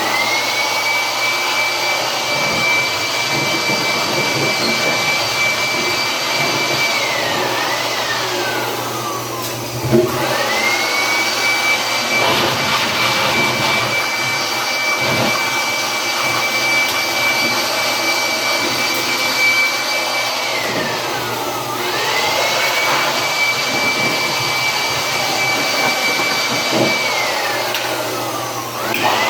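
A dryer's motor and fan running with a loud rush of air and a high whine. Three times the whine slides down in pitch as the motor slows, then climbs quickly back as it speeds up again.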